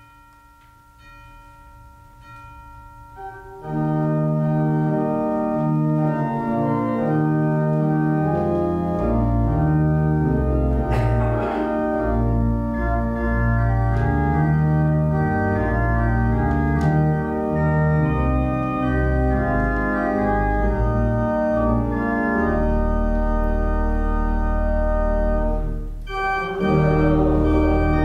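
Church organ playing a hymn introduction in sustained chords: it begins softly on a held chord, swells to full volume about four seconds in, and adds a deep pedal bass a few seconds later. It breaks off briefly near the end before starting again.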